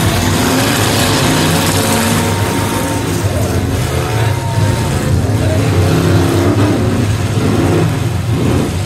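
Several demolition-derby pickup truck engines running and revving at once, their overlapping pitches rising and falling over a loud, steady din as the trucks push against each other.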